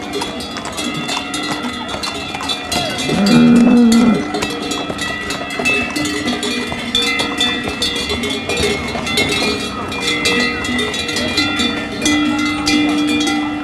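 Bells on a team of white oxen clanking and ringing continuously as the ox-drawn carts pass, with an ox lowing once, rising then holding, about three seconds in.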